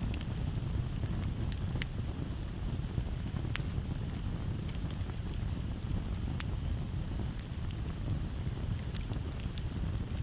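Campfire crackling: irregular sharp pops and snaps over a low, steady rush of flame and breeze. A steady high chirring of crickets runs behind it.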